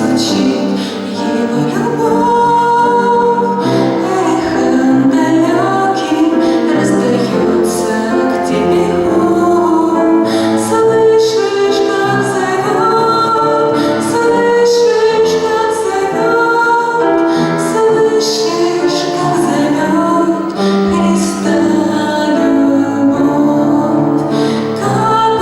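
Music: a woman singing a Christian song over an instrumental accompaniment.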